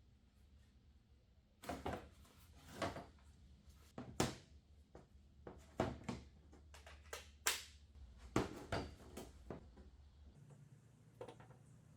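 A series of irregular sharp knocks and clatters, about a dozen over several seconds, some ringing briefly.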